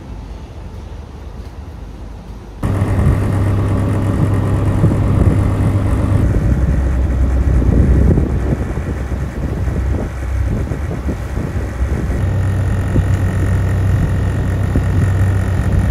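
Small harbour ferry's engine running with a steady low hum, heard from inside the cabin; it comes in suddenly about three seconds in.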